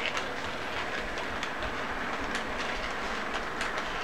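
Model train with a Santa Fe-painted diesel locomotive rolling past: a steady whir and rumble from the motor and wheels, with irregular clicks as the wheels cross the track joints.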